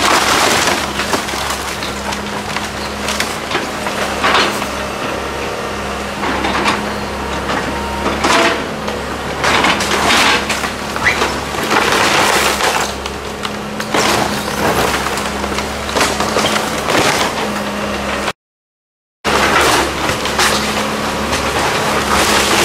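John Deere 110 excavator demolishing a wood-frame cottage: repeated cracking, crunching and splintering of wood framing and siding as the bucket tears into the house, over the steady hum of the machine's diesel engine. The sound drops out for a moment near the end.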